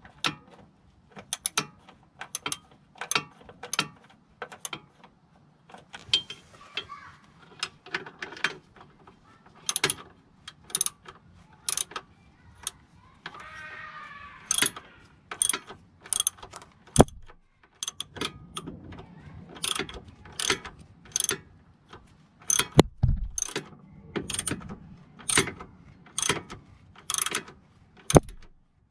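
Ratchet wrench clicking in repeated strokes, about two clicks a second, with a few heavier knocks and a brief squeak.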